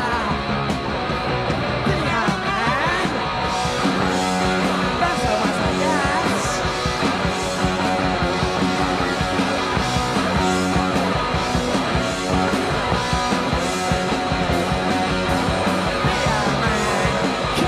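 Punk rock band recording playing on: distorted electric guitar, bass and drums with a steady driving beat.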